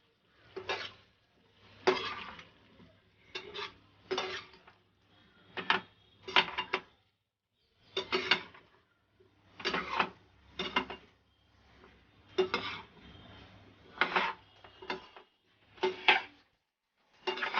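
A spatula stirring and tossing potato bhaji in a metal pan: short scraping, clinking strokes against the pan, roughly one a second and somewhat irregular, each with a brief metallic ring.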